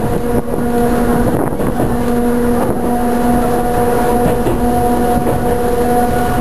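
Choshi Electric Railway train car running at steady speed, heard from inside the car: a steady whine from the running gear over the rumble of the wheels on the rails.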